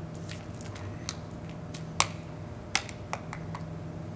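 A run of sharp, separate clicks from a glass Snapple bottle as its metal cap is twisted off by hand; the loudest comes about two seconds in, with a few more close together shortly after.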